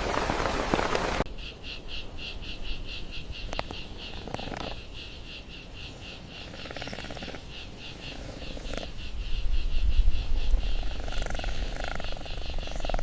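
A loud rush of noise that cuts off suddenly about a second in, then steady high-pitched rhythmic chirping, about five pulses a second, of a nature ambience chorus, with a low rumble rising in the second half.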